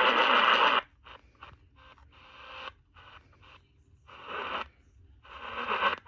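Eton portable AM radio's speaker: the station audio cuts off abruptly about a second in. Short bursts of static and snatches of stations then come and go as the AM dial is stepped up the band, and the sound grows louder again near the end.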